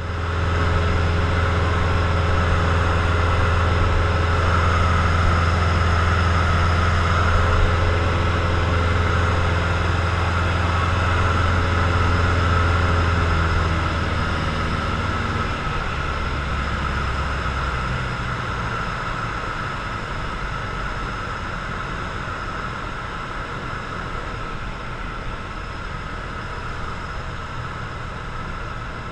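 Cessna 172's piston engine and propeller heard from inside the cockpit, running steadily at power with wind noise over the airframe. About 14 s in the throttle comes back: the engine note slides down in pitch and gets quieter, then holds a lower, softer drone, as the power is reduced for stall practice.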